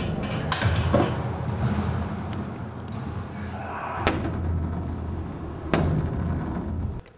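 Balls thrown by a child slamming against the walls and floor of a racquetball court. There are sharp bangs about half a second in, at one second, around four seconds and near six seconds, over a steady low hum. The sound cuts off sharply just before the end.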